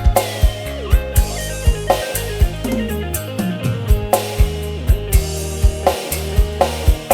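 Loud dangdut-style music track: keyboard melody and held bass notes over kendang drumming, with repeated heavy bass thumps.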